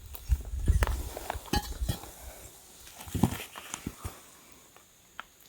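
Clicks and light clinks of a trail camera being handled and opened, with low rumbling handling noise over the first two seconds; the clicks thin out and stop about four seconds in.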